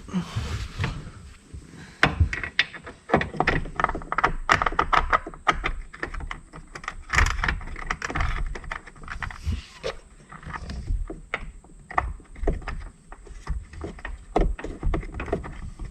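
Irregular clicks, taps and rattles of hand-fitted hardware: the Jeep Wrangler JK's factory Freedom-panel turn knobs being handled and threaded back into the roof.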